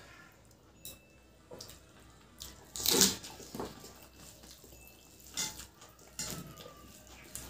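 Wet, squelchy eating sounds: fingers mixing and squeezing rice with egg curry, with mouth sounds of eating, in scattered short bursts. The loudest is one wet smack about three seconds in.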